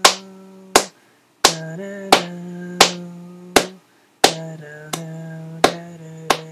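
A voice humming long held notes of a slow piano melody, changing pitch now and then, over a steady beat of sharp clicks about every 0.7 seconds that mark the tempo.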